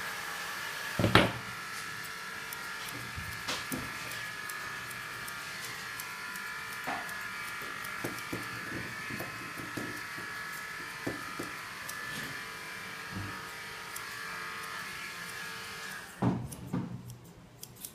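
Grooming scissors snipping and a comb working through an Airedale Terrier's leg coat, a string of short clicks with one sharp clack about a second in. A steady small-motor hum runs underneath and cuts off about two seconds before the end.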